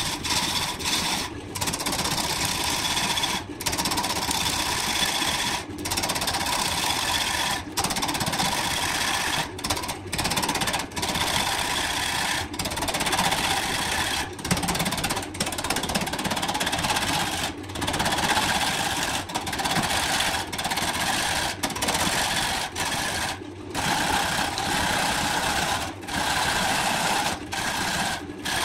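Gouge cutting into a large spinning blank of burned wood on a wood lathe: a steady rasping cut over the running lathe, broken by short gaps every second or two.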